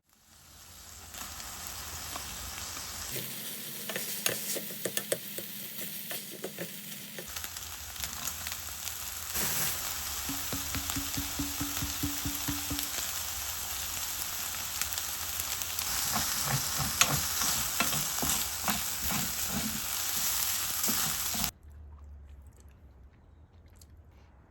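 Food sizzling in a hot frying pan while it is stirred, with a utensil clicking and scraping against the pan. The sound shifts abruptly a couple of times as clips are joined and stops suddenly near the end.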